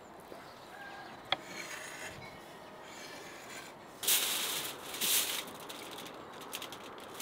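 Aluminium foil being spread and smoothed flat by hand on a table, crinkling and rustling in loud bursts that start about four seconds in, then lighter crackles. Before that there is one sharp click.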